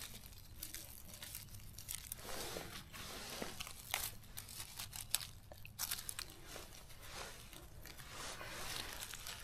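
Scattered crunching and rustling of forest-floor leaf litter close to the microphone, with a few sharp snaps.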